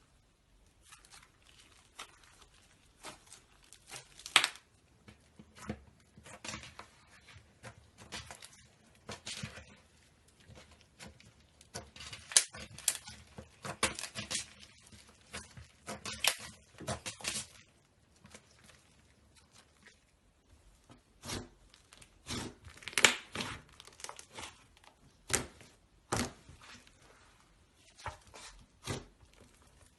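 Slime being handled by hand, making irregular sticky pops, clicks and crackles that come in clusters with short quiet gaps between them.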